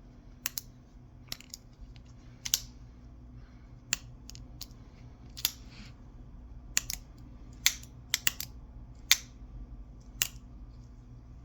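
Ozark Trail Glacier crossbar-lock folding knife being flicked open and shut over and over: sharp clicks at an uneven pace as the blade snaps out and the crossbar lock engages, some in quick pairs. Its bearing pivot is freshly oiled with penetrating lubricant.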